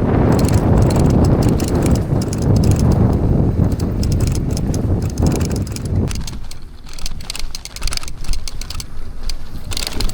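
Mountain bike being ridden over rough ground, with wind rumbling heavily on the microphone for the first six seconds or so. After that come quieter stretches of rattling and fine clicking from the bike.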